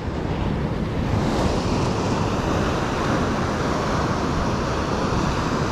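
Atlantic surf breaking on a sandy beach: a steady wash of waves.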